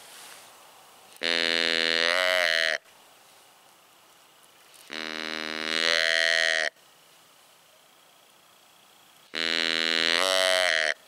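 Hand-held deer call blown as a doe bleat, imitating a doe's call, sounded three times. Each bleat lasts about a second and a half and drops in pitch at the end.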